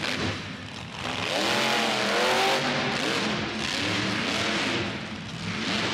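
Monster truck engine revving hard, its pitch swelling up and down several times, with the biggest rev about two seconds in.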